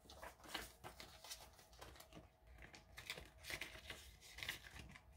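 Faint rustling and crinkling of paper prop-money bills being handled and pulled out of a budget binder's envelope, with scattered light clicks.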